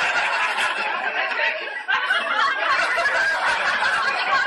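Many people laughing together in a dense, cackling burst that cuts off suddenly at the end.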